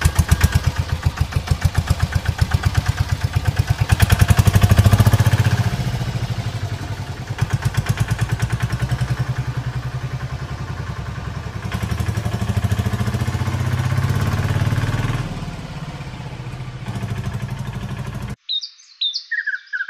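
Small engine running at a slow idle with an even pulsing beat of about four pulses a second. It swells louder about four seconds in and cuts off abruptly near the end.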